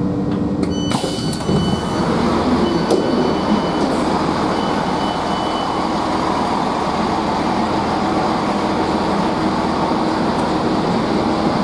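GWR Class 165 diesel multiple unit's passenger door opening: a clunk just under a second in as the door releases, then the door warning tone beeping on and off for about five seconds. Under it runs the steady rumble of the idling unit.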